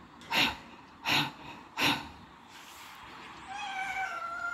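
Domestic cat meowing: one drawn-out, fairly soft meow starting about three and a half seconds in. Before it come three short, sharp, sneeze-like puffs in the first two seconds, about three-quarters of a second apart, and these are the loudest sounds.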